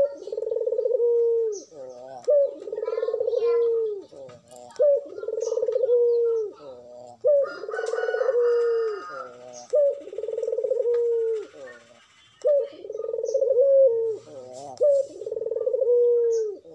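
Barbary dove (puter) cock giving its bowing display coo, the courtship call of a bird in full breeding condition: about seven long coos, each a short sharp rising note running into a long, slightly falling one, repeated about every two and a half seconds.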